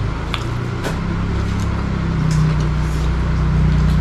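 A motor engine running with a steady low hum that grows louder about a second in. A few faint clicks sit over it near the start.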